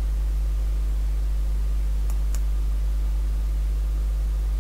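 Steady low electrical mains hum, with two faint clicks close together about two seconds in.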